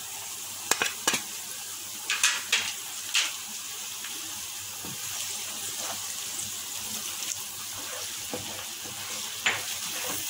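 Chopped onions sizzling steadily in hot oil in a non-stick pan while spices are stirred in. A few sharp knocks and scrapes on the pan come in the first three seconds and once more near the end.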